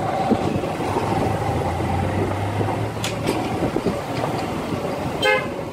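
Motorcycle riding along a road: steady engine hum mixed with wind and road noise, with a short beep near the end.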